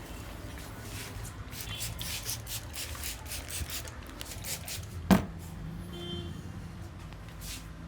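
Massage strokes rubbing over skin, quick and repeated at about three a second, then one sharp click about five seconds in.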